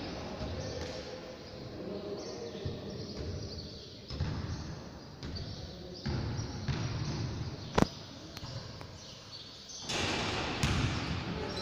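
Indoor basketball game in a reverberant gym: uneven background noise of play and people that swells and fades, with one sharp bang about eight seconds in, the loudest sound.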